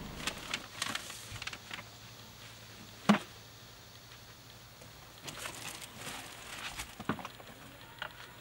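Camping gear being handled and unloaded from a car's open tailgate: scattered knocks, clicks and rustles. There is one loud thump about three seconds in.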